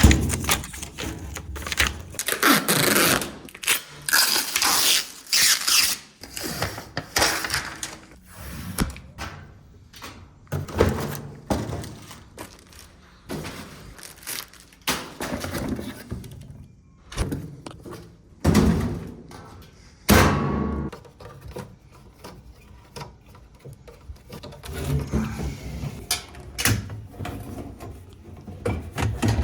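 Irregular thuds, knocks and scraping from hands-on work around a top-load washing machine and its fittings.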